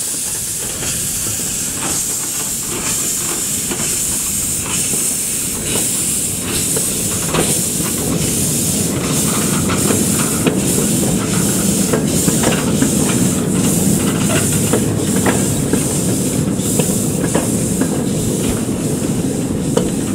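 Miniature steam locomotive pulling away with its cylinder drain cocks open: a loud, steady hiss of escaping steam, cut by regular exhaust beats. The low rumble of the train running on the rails builds after about eight seconds as it moves off.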